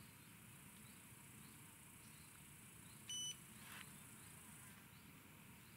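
Electronic bite alarm on a ledger rod giving one short, high beep about three seconds in, signalling a bite as a fish pulls on the line.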